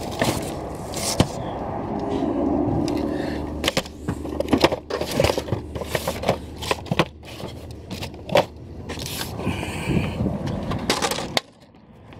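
Boxed action figures and crumpled packing paper being handled in a cardboard shipping box: paper crinkling, cardboard scraping, and a string of sharp knocks and clacks as packages are pulled out and set down. A low steady rumble runs underneath, and the handling noise drops off suddenly just before the end.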